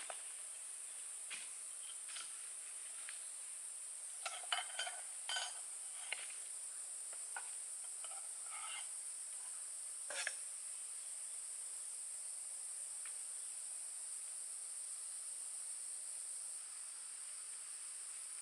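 Steady high-pitched insect chorus from the surrounding forest, with scattered light clinks and knocks during the first half, loudest around four to six seconds in and again near ten seconds.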